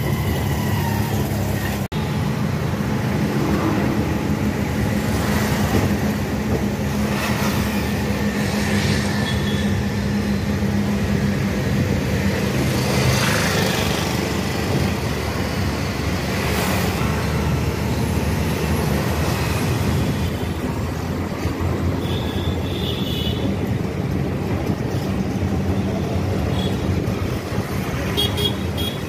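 Auto-rickshaw's small engine running steadily under way, heard from inside the open cabin, over a continuous wash of road and city traffic noise.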